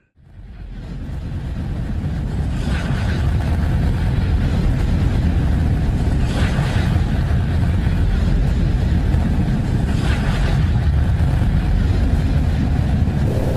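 A dense, steady low rumble with a hiss over it. It fades in over the first couple of seconds and then swells briefly about every four seconds. This is a 'space sound' made by turning a spacecraft's radio or plasma-wave recording of a solar-system body into audio.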